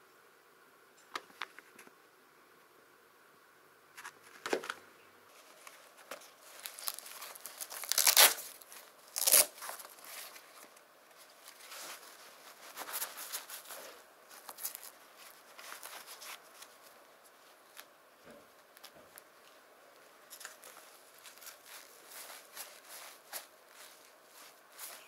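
A clear plastic bag crinkling and being torn open, with two loud rips about a third of the way in. Then comes the rustle and scrape of textile motorcycle gloves being pulled on and their cuffs adjusted.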